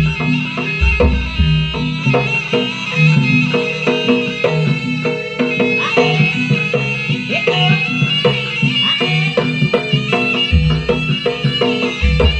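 Jaranan music: a Javanese ensemble with a shrill reed wind instrument playing over quick hand-drum patterns, with deep low booms that return near the end.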